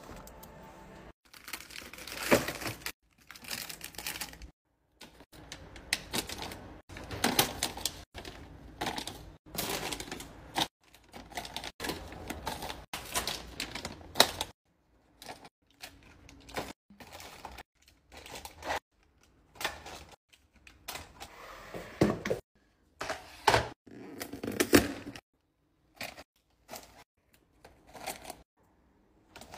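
Plastic snack and cereal packets crinkling and tapping as they are handled and set into clear plastic bins and onto a plastic turntable: irregular clicks and rustles in short bursts, broken by sudden gaps.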